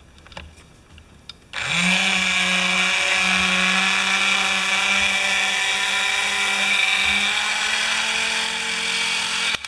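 Small electric gear motor of a scale toy fire truck's boom, freshly greased, starting up about a second and a half in with a brief rising whine, then running steadily with a geared whine for about eight seconds before cutting off near the end. A few faint clicks come before it starts.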